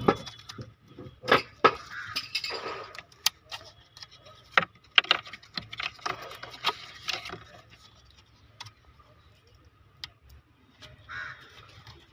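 Irregular metallic clinks and knocks with some rustling as tools and metal car parts are handled, busy for the first several seconds and sparser after.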